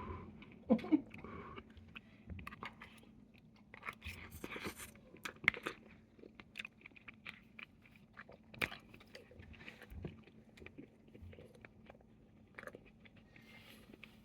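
A person biting into and chewing a chicken korma roti (curry wrapped in flatbread) close to the microphone: a run of short wet clicks and smacks, loudest about a second in.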